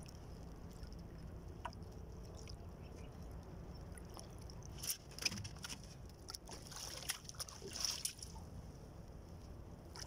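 Water lapping and sloshing against the hull of a small outrigger boat, over a steady low rumble, with a few faint splashes and knocks between about five and eight seconds in.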